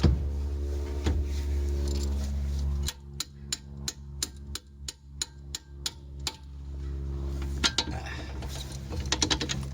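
Light, sharp metallic clicks from a hand tool working a bolt loose on a 2001 Volvo V70 XC's suspension, evenly spaced at about four or five a second for some three seconds, then a few quicker bursts of clicks near the end, over a steady low hum.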